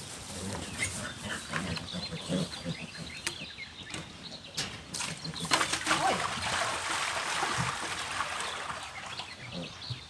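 Water being poured out and splashing into sand: a spreading splash that starts about five and a half seconds in and runs for about four seconds. It follows a few light knocks.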